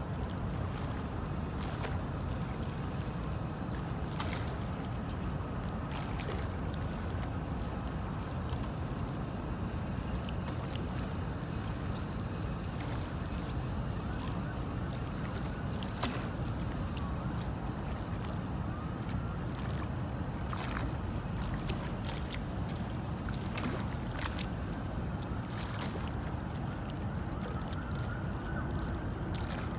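Steady low outdoor rumble beside a wide river, with a few faint ticks and, here and there, faint high tones that rise and fall.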